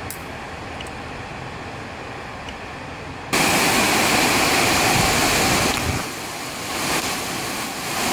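A quiet steady background hiss, then, from about three seconds in, the much louder, even hiss of rain pouring down, easing briefly about six seconds in before building again.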